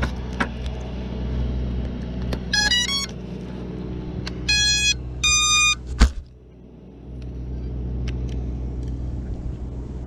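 An FPV quadcopter's ESCs play their start-up tones as its battery is plugged in: a quick run of rising notes, then two longer beeps. They sound over a steady low rumble like a running vehicle, and a sharp thump comes about six seconds in.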